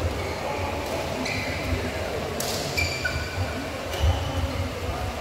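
Badminton rally: sharp racket-on-shuttlecock hits, one about a second in and a louder one about halfway through, each followed by short squeaks. Low thuds run under the hits, over general hall noise.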